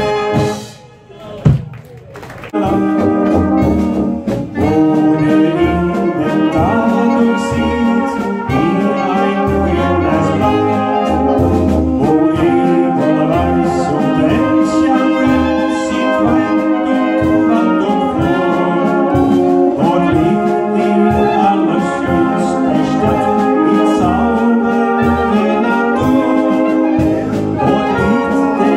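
Brass band with trumpets and trombones playing Egerländer-style music. About a second in, the music breaks off briefly with one sharp, loud knock, then the band starts up again.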